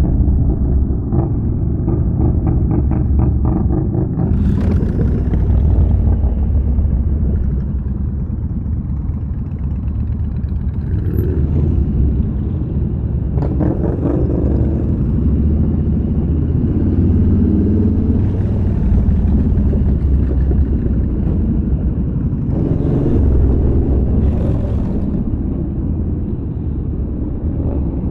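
Yamaha Bolt's air-cooled V-twin engine running under way, a steady low rumble that swells and eases a little as the motorcycle rides along.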